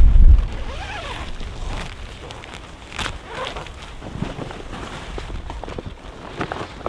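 Strong wind gust buffeting the microphone, dying away within the first half second, followed by rustling with scattered clicks and knocks.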